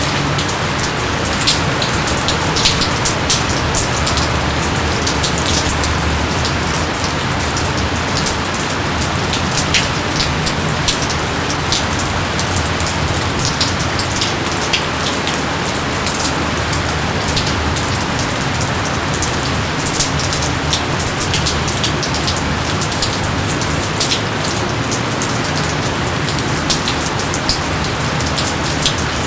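Steady heavy rain falling on jungle foliage, a constant hiss dotted with many sharp individual drop splats.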